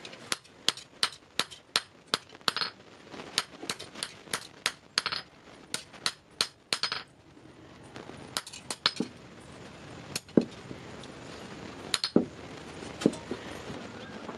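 Hand hammer striking a steel bar on an iron anvil block: a quick run of sharp, ringing metallic blows, about two or three a second, for the first seven seconds, then a few scattered strikes as the bar is forged into a wall hook.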